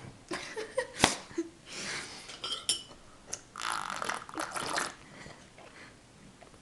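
Someone slurping a drink: wet liquid sounds with a longer stretch around the middle, and one sharp click about a second in.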